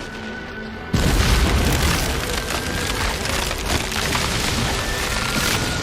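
Anime Wood Style (Mokuton) jutsu sound effect: a sudden heavy rumbling crash about a second in that keeps going as a dense low rumble, over background music with a steady held tone.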